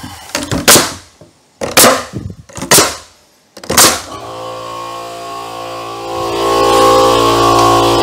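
Pneumatic nail gun firing four times, about a second apart, driving nails into wooden boards. About halfway through, steady background music comes in and grows louder.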